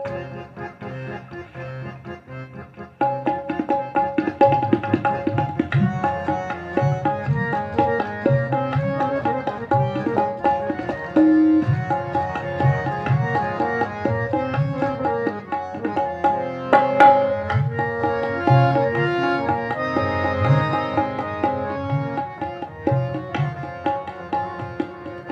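Instrumental introduction to a ghazal: tabla playing a steady rhythm under a melody instrument holding long notes. The music is quieter for about the first three seconds, then comes in fuller with the tabla.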